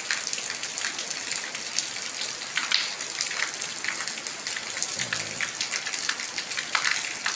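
Heavy rain falling on a paved lane, with water running over the ground: a steady hiss thick with the splashes of close drops.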